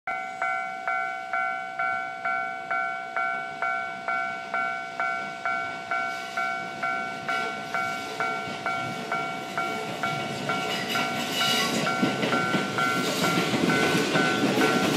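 Japanese railway level-crossing warning bell ringing about twice a second. A train comes in under it about halfway through and is passing the crossing near the end, its wheels rumbling and clattering.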